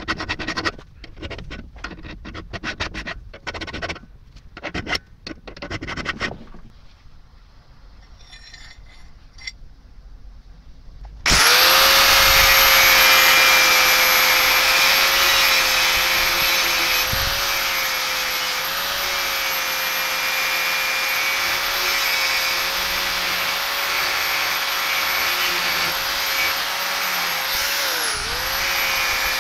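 A hand tool scrapes in repeated strokes, about two a second, along the toothed rack of an adjustable wrench's jaw clamped in a steel vise. About eleven seconds in, an angle grinder starts abruptly and runs steadily with a high whine, dips briefly near the end, and cuts off.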